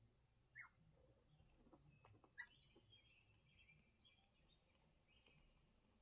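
Faint birdsong, chirping and twittering, played from a nature video on a television, with two short, louder chirps about half a second and two and a half seconds in.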